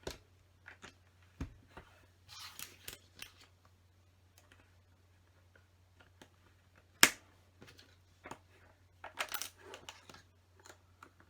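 Plastic LEGO pieces clicking and rattling as they are handled, with two short clusters of rattling and one sharp, loud click about seven seconds in.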